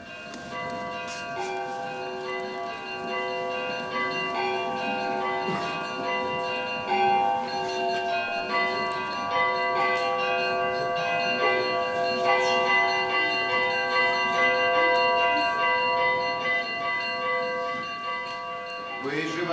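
Church bells ringing a peal, many bells at different pitches struck again and again and overlapping, growing louder over the first half.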